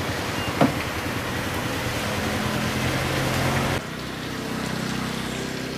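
A steady motor drone over an outdoor rushing noise, with one short knock about half a second in. A little under four seconds in the sound drops abruptly, leaving a quieter hum.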